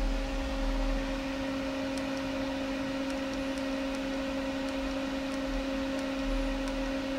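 Bench power supply for a car-audio test setup buzzing steadily, a constant low hum with faint ticks about every two-thirds of a second.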